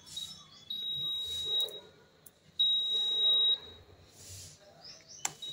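Usha induction cooktop's buzzer giving two long, high-pitched beeps, each about a second long, as the cooktop is powered up and switched on. A sharp click comes near the end.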